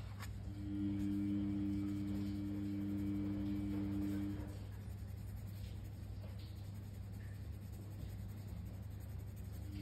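Black coloured pencil shading on a colouring-book page, a faint scratching of lead on paper under a steady low hum. A steady two-note drone starts about half a second in and stops after about four seconds.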